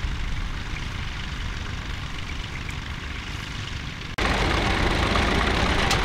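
Vintage tractor engine running steadily while pulling a plough; about four seconds in it changes abruptly to a different, louder tractor engine.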